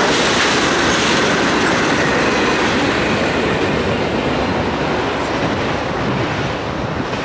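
A freight train rolling past, its cars' wheels rumbling and rattling on the rails in a loud, steady wash of noise. The high hiss thins out near the end.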